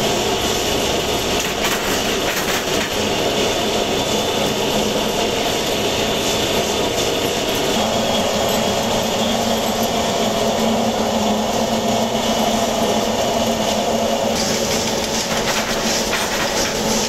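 Steady din of workshop machinery running, a continuous mechanical hum with rattle and clatter. The sound shifts slightly about three quarters of the way through.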